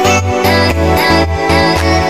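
Background music with a pulsing bass line.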